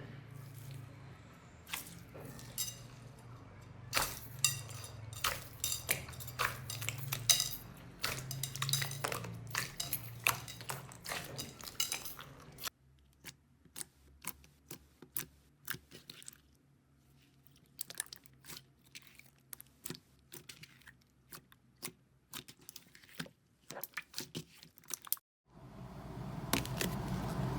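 Slime being squeezed and poked by hand, giving many sharp crackling clicks over a low hum. About halfway through it cuts to a quieter clip with sparser, softer clicks.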